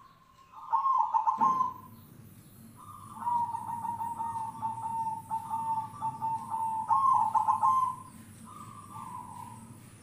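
Zebra dove (perkutut) cooing in rapid trilled notes. There is a louder burst about a second in, a long even purring trill from about three seconds, and another louder burst near eight seconds. A low steady hum runs underneath.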